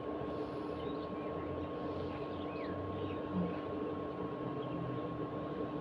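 A steady background hum holding two constant tones over a soft even noise, with a few faint short chirps and one small low blip a little past three seconds in.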